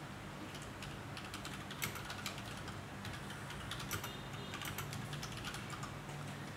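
Faint computer keyboard typing: soft key clicks at irregular intervals, over a low steady electrical hum.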